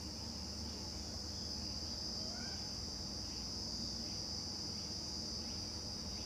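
A steady, high-pitched insect trill, continuous and unchanging, over a faint low hum.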